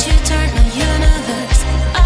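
Background pop music with a steady beat, a kick drum about twice a second over a sustained bass line, and a melody gliding above.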